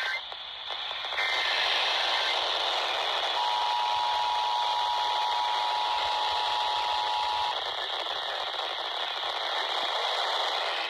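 Emergency Alert System test tones over a hissy two-way radio channel (the state EAS relay network on 155.475 MHz): a short burst of SAME header data tones about a second in, then the two-tone EAS attention signal, 853 and 960 Hz, held for about four seconds, with steady radio hiss throughout.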